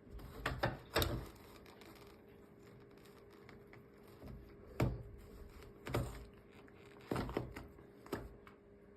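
A few irregular knocks and clicks, a cluster in the first second and single ones around five, six, seven and eight seconds in, over a faint steady hum.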